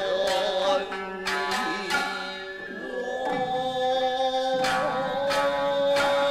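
Background music: long held pitched tones over sharp drum strikes at uneven intervals.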